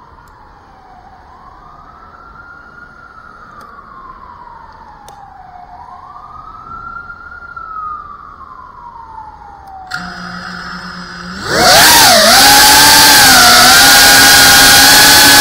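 A faint siren in the distance wails, sliding slowly down in pitch and then quickly back up, twice. About ten seconds in, an FPV drone's brushless motors start with a steady idle hum. A second and a half later they spool up into a loud whine that wavers in pitch as the drone takes off and flies.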